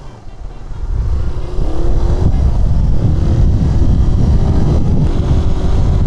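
Suzuki Raider 150 motorcycle under way: engine and wind rush on the camera's microphone, getting louder over the first second or two as the bike picks up speed, then holding steady, with a short rising engine note.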